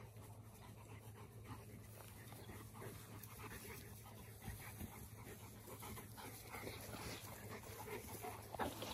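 A young Cane Corso panting, with a brief bump near the end.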